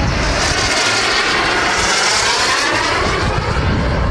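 Turbine-powered RC model jet flying past, its jet hiss and whine swelling to a peak about halfway through and then easing off.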